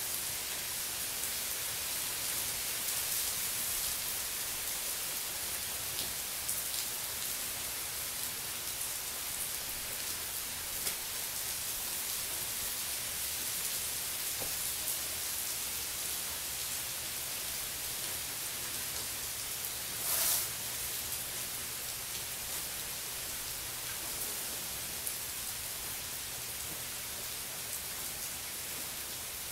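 Heavy rain falling steadily on a swimming pool and its wet concrete deck, an even hiss, with one brief louder rush of noise about two-thirds of the way through.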